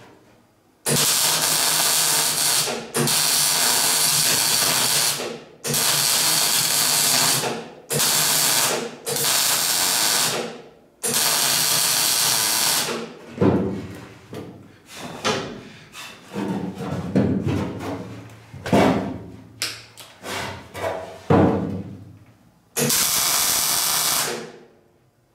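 MIG welder arc crackling through a series of welds on steel box section. Most runs last one to two seconds and stop abruptly, with shorter, choppier bursts in the middle stretch.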